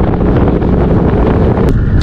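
Loud, rough wind buffeting on the microphone of a bass boat running at speed across open water.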